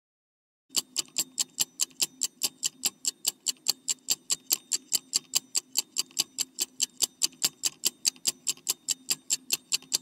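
Ticking-clock sound effect for a quiz countdown timer: a steady tick about four times a second, starting just under a second in.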